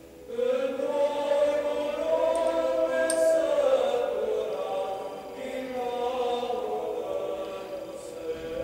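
Choral chant: several voices sing a slow, sustained melody over a held drone note.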